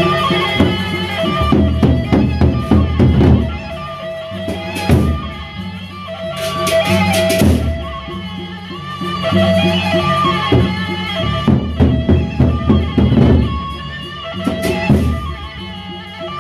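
A Lombok gendang beleq ensemble playing: the large barrel-shaped gendang beleq drums are beaten with sticks in a fast, driving rhythm under a held melody line. A cluster of cymbal clashes comes about seven seconds in.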